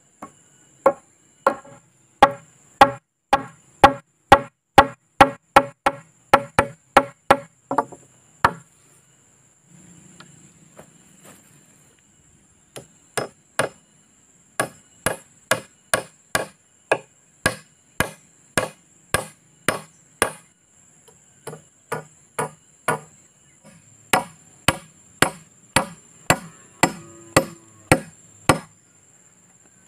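A small hatchet chopping into a peeled wooden pole, cutting a notch where it joins another pole. Quick, sharp strikes come about two a second in long runs, with a pause of a few seconds about a third of the way in.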